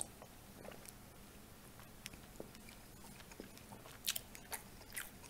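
Faint mouth sounds of a person sipping and swallowing a drink from a glass mug: scattered soft clicks and sips, with two louder ones about four and five seconds in.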